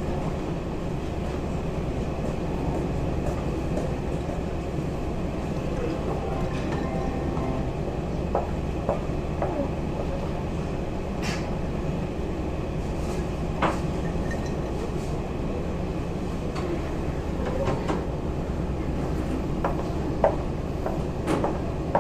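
Steady low rumble of a cruise ship's engines heard on board, with a few sharp clicks scattered through it.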